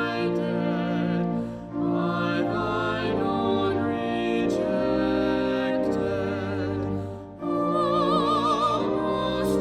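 Music: a voice singing long held notes with a wide vibrato in a classical style, over sustained accompaniment. There are two short breaks between phrases, one about two seconds in and one near the end.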